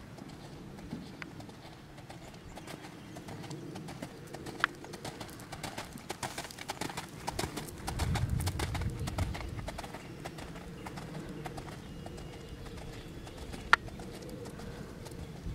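Hoofbeats of a bay Trakehner gelding trotting on a gravel arena, a steady run of light clip-clops on the grit. A low rumble swells about eight seconds in, and two sharp ticks stand out, one near five seconds and one near the end.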